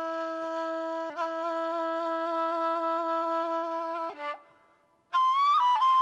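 Bulgarian kaval, a wooden end-blown flute, played solo: one long held low note, briefly re-articulated about a second in, stops about four seconds in for a breath. After the pause a louder high note comes in with a small bend in pitch and is held.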